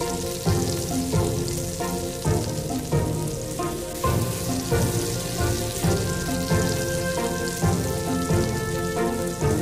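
Sliced shallots and garlic sizzling in hot cooking oil, a steady hiss, under background music with a steady beat.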